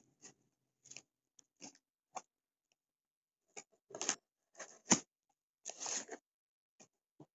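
Cardboard postal box being opened: irregular crackles and snips as packing tape and cardboard are cut and pulled with scissors, with a sharp crack about five seconds in and a longer rustle just after.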